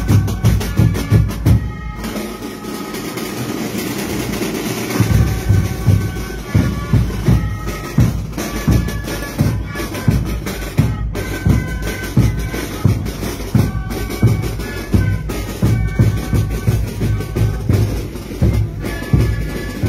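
Marching band playing in procession: bass drums beating about twice a second with snare drums and cymbals under a steady melody. The bass drum drops out for about three seconds early on the second beat, then comes back in.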